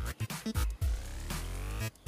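Electronic background music with a quick, steady beat and a sliding synth tone in the second half.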